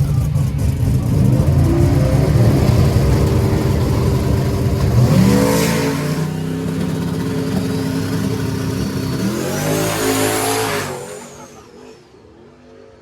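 Turbocharged Cutlass engine under hard acceleration, its pitch climbing and stepping twice as it shifts. There is a burst of hiss at each step and a rising whistle between them, and the sound fades away near the end.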